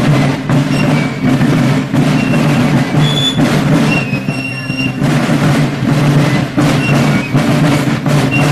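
Marching band music with drums beating a steady march rhythm.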